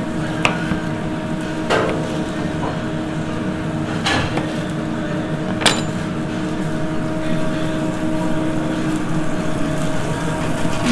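A chef's knife knocking against a plastic cutting board four times at uneven intervals while a red onion is cut, over a steady kitchen hum.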